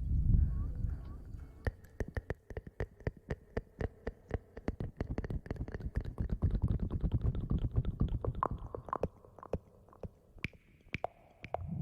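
Close-miked ASMR rustling and scrubbing: a low rumble under many quick, irregular crackles and clicks, swelling and easing a few times.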